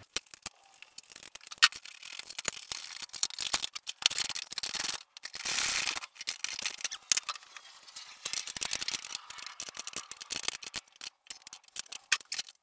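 Metal-on-metal clicking, rattling and scraping from hand tools and bolts as a hydraulic handbrake lever is bolted down to a car's bare steel floor pan. The sound comes as irregular clusters of sharp clicks and short scrapes.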